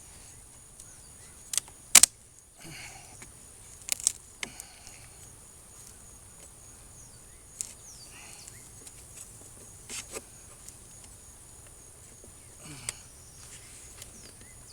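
Wooden beehive boxes and frames knocking and clicking as the hive is opened one box deeper, the loudest a sharp knock about two seconds in, with scattered lighter clicks after. A steady high insect trill runs underneath.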